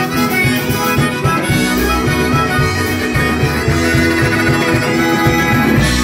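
A live band playing a song with keyboard and a steady beat, a harmonica carrying sustained melody notes.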